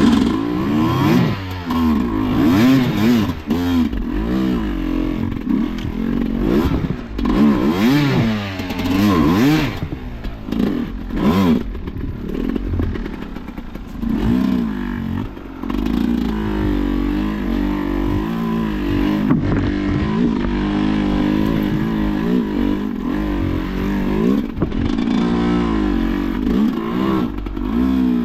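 Enduro motorcycle engine being ridden hard: the revs swing up and down in quick throttle bursts for the first half, then hold fairly steady with small wavers. Occasional knocks and clatter are heard over it.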